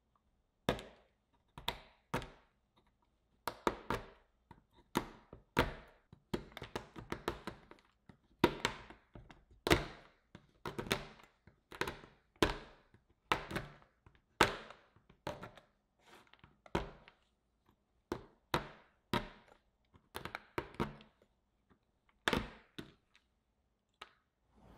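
Chef's knife chopping a bar of dark chocolate on a cutting board: a run of sharp, irregular chops, one or two a second, each blade stroke cracking through the chocolate and knocking on the board.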